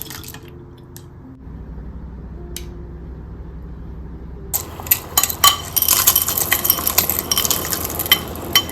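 Kitchen dishes and utensils clinking, then from about five seconds in a loud rush of tap water running into the sink over crockery, with clatter through it, over soft background music.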